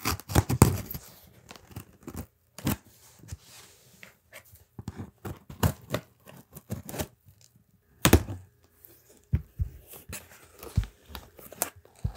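A large cardboard package being torn open by hand, with irregular tearing and scraping of tape and cardboard and sharp knocks about half a second in and again about eight seconds in.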